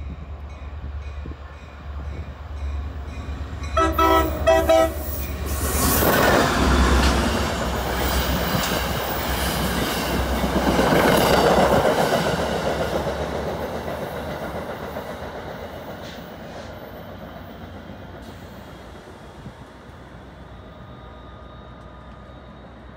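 NJ Transit commuter train sounding its horn in short blasts about four seconds in, then passing close by with a rushing wheel-and-rail noise. The noise is loudest around six and eleven seconds in, then slowly fades as the train moves away.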